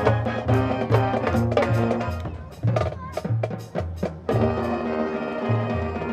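High school marching band playing its field show: brass chords over a pulsing sousaphone bass line with drum hits. About two seconds in the sustained winds thin out to a short run of sharp percussion strikes, and the full band comes back in about four seconds in.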